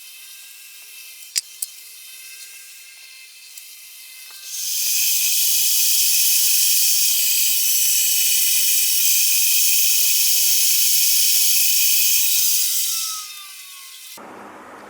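Milling cutter machining an aluminium part: a steady high hiss with a faint whine, starting about four and a half seconds in and stopping a little before the end, after two sharp clicks.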